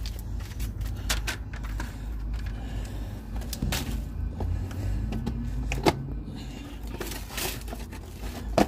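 Footsteps in flip-flops on sandy ground and scattered knocks and clicks from a handheld reach grabber, over a steady low rumble. The sharpest knocks come about six seconds in and just before the end.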